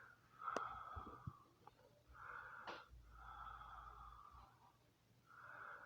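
Faint breathing close to the microphone: four soft breaths about a second or more apart, with a couple of small clicks between them.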